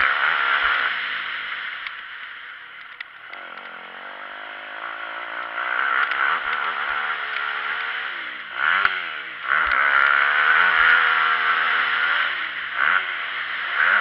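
Dirt bike engine revving up and easing off as it is ridden hard on a motocross track, its pitch climbing and dropping with the throttle and gear changes. It falls quieter about two to three seconds in, then climbs again and stays at high revs for most of the rest, with a sharp drop and pick-up a little past the middle.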